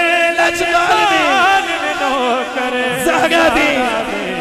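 Male voices chanting a devotional manqabat, a lead voice holding long wavering, ornamented notes over the group.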